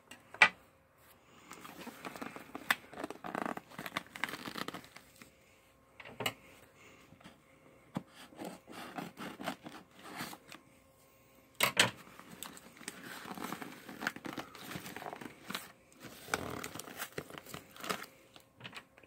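Packing tape on a cardboard box being cut with scissors and torn away: irregular crinkling, rustling and tearing of tape and cardboard, broken by short pauses, with a few sharp knocks, the loudest about half a second in and about twelve seconds in.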